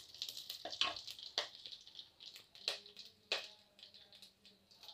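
Whole spices (cumin seeds, dried red chillies, bay leaf, cardamom, cloves and cinnamon) sizzling in hot mustard oil in a clay pot, with about four sharp crackling pops. This is the tempering stage, the spices spluttering in the oil.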